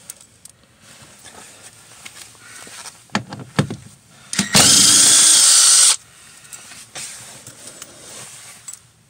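Cordless impact gun with a 14 mm socket running once for about a second and a half, hammering loose a seat-track bolt. A few sharp clicks of the socket being fitted onto the bolt come just before it.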